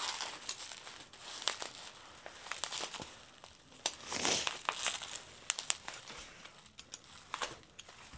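Bubble wrap crinkling and crackling as it is handled and cut open with a box cutter: irregular crackles and clicks, with a denser stretch of rustling about four to five seconds in.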